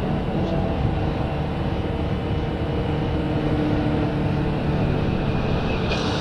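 Steady low rumbling drone with a few faint held tones.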